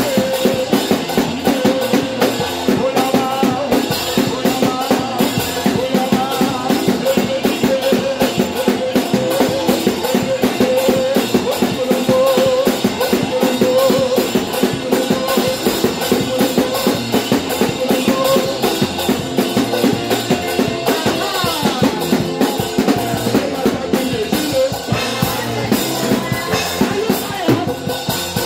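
Loud dance music with a steady drum-kit beat and a held melody over it.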